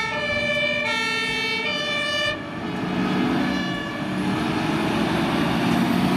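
Toy fire truck's electronic two-tone siren, switching between a high and a low note about every 0.8 seconds. About two and a half seconds in it gives way to a rougher, noisier electronic sound.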